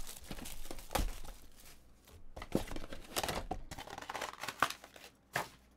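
Plastic wrapping being torn and crinkled as a box of 2018 Finest baseball cards is opened, with a few sharp knocks from handling the cardboard.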